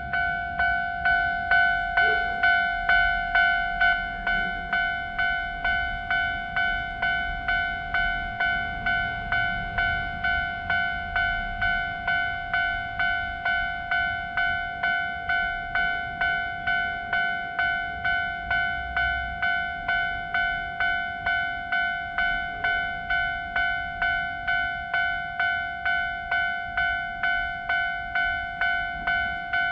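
Japanese railroad crossing warning bell ringing its repeated 'kan kan' at about two strikes a second, one steady pitch. It is a little louder in the first few seconds.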